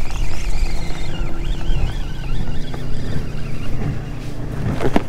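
Motorboat engine running steadily, with wind buffeting the microphone.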